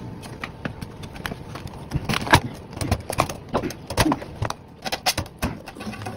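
A metal utensil scraping and knocking around the inside of a round metal baking pan to loosen a deep-dish pizza, with the pan knocking on a wire cooling rack: a string of irregular clicks and knocks, loudest about two seconds in.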